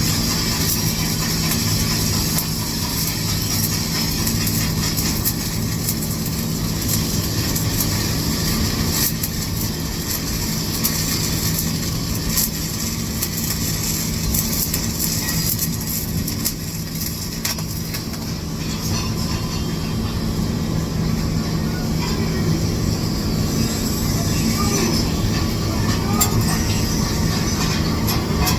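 Stick welding arc crackling steadily, with a low steady hum underneath.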